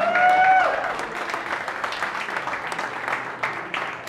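Crowd applauding and cheering, opening with a loud, high whoop that ends within the first second; the clapping slowly dies down after it.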